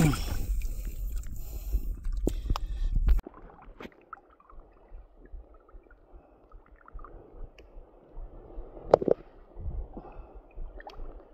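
Water splashing with a low rumble, cut off abruptly about three seconds in. After it, faint lapping water with scattered small clicks and one sharper click about nine seconds in.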